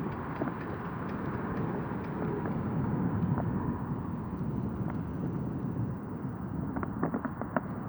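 Wind rushing over an unshielded phone microphone, mixed with tyre and frame noise from a mountain bike being ridden. A run of light clicks and rattles comes near the end.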